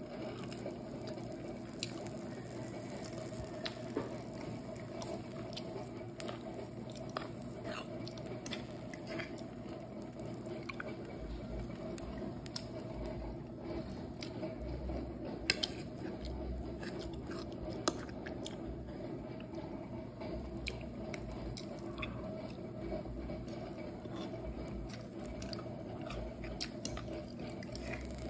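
Eggs frying in a cast-iron pan on a portable gas stove: a steady low hum with many small scattered crackles and pops.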